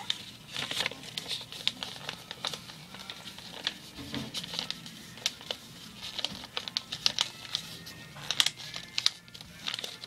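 A sheet of paper crinkling and rustling as it is folded and creased by hand, in quick irregular crackles. Faint music plays underneath.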